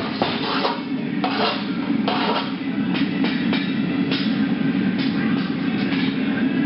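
Steady machine rumble of a metal-working shop, with irregular clanks and clinks of steel bar stock being handled.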